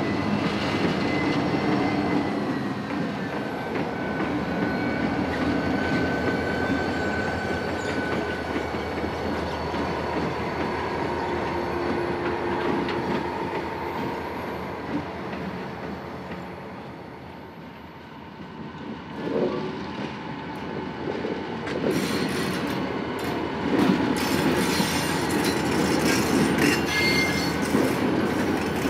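Reading & Northern diesel freight locomotives and cars rolling past at close range. For the first half, thin steady high-pitched tones of wheels squealing ride over the rumble. Later the sound grows louder and busier, with wheels clacking over the rail joints.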